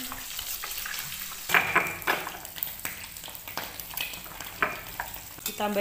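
Stone pestle grinding and crushing chilies, shallots and garlic against a stone mortar (Indonesian ulekan and cobek) to make sambal, with repeated irregular scraping and crushing strokes.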